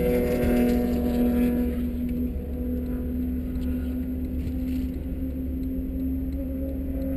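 BMW M52B28 2.8-litre inline-six idling steadily in a stationary E30, heard from inside the cabin.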